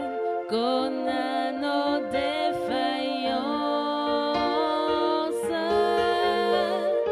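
A slow hymn sung by a voice over sustained, held accompaniment chords.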